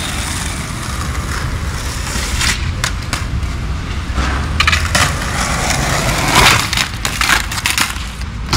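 Skateboard wheels rolling over rough concrete with a steady low rumble, broken by several sharp clacks of the board hitting the ground during tricks; the loudest comes about six and a half seconds in.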